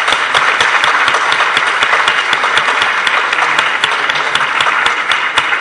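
Audience applauding steadily, with many separate claps standing out sharply above the general clapping.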